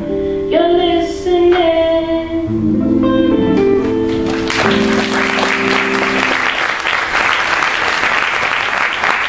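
A woman singing the last held notes of a song into a microphone over a sustained accompanying chord, then an audience applauding from about halfway through.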